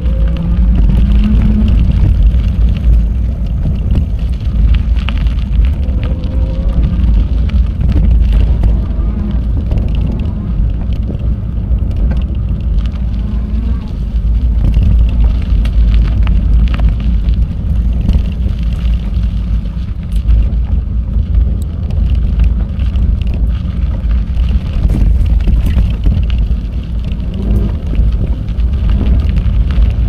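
Wind buffeting the microphone of a camera riding along on a moving bicycle: a loud, steady low rumble, with the odd click and knock from the ride over the path.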